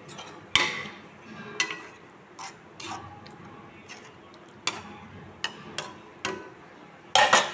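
A spoon stirring dal in a metal kadhai and knocking against the pan, making about ten irregular clinks with a short ring. The loudest clinks come near the end.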